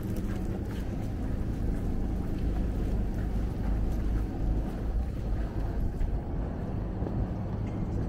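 Steady low rumble of outdoor street ambience, with a faint hum and a few scattered light clicks.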